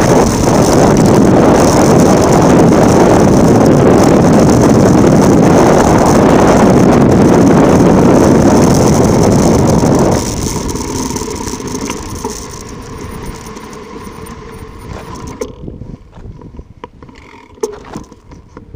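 Wind rushing over the microphone and tyre noise from a bike descending fast on a volcanic track. About ten seconds in, the rush drops sharply and fades away as the bike slows, leaving small scattered clicks and rattles.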